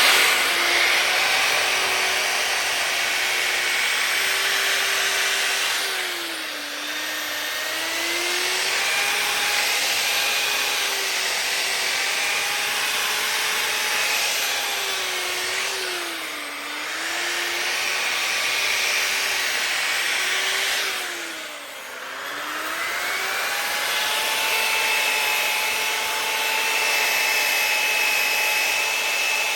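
Bauer variable-speed grinder running a 320-grit sanding disc against a cast iron skillet: a steady motor whine over loud grinding hiss. The motor's pitch sags and recovers three times, about 6, 16 and 21 seconds in.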